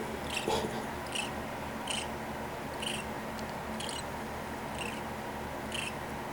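Baby bird in the nest peeping: short, high chirps repeated about once a second, seven or eight in a row.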